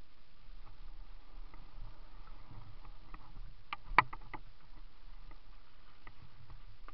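Bicycle rolling over a snowy, muddy trail, its frame and parts rattling with scattered light clicks. A sharp knock comes about four seconds in.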